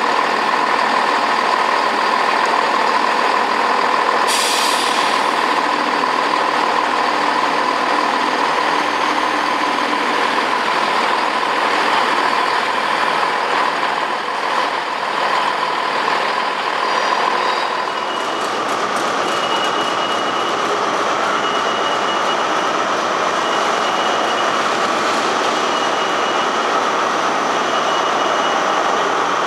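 A train running steadily alongside a station platform, with a steady mid-pitched tone in its noise. A short burst of hiss comes about four seconds in. From about two-thirds of the way through, a high beep repeats roughly every second and a half.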